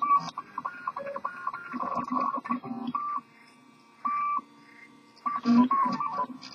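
Stepper motors of a RepRap 3D printer whining in short tones that jump between pitches and start and stop with each move of the print head while it prints. A lower rattle runs along with them. About three seconds in the motors go nearly quiet for two seconds, apart from one short tone.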